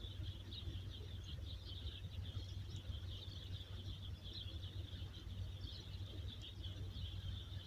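Small birds chirping continuously in the background, a dense, high twittering, over a low steady rumble.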